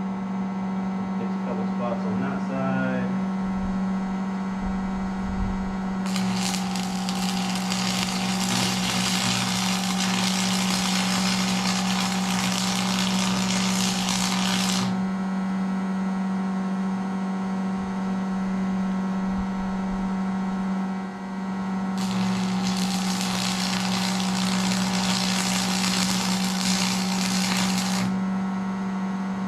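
Two runs of arc welding, the first about nine seconds long and the second about six, each a dense crackle that starts and stops abruptly, as a hole in the baler's metal is welded up. A steady low hum runs underneath throughout.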